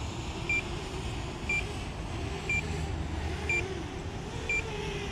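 A short high electronic beep repeating steadily about once a second, over a low background hum.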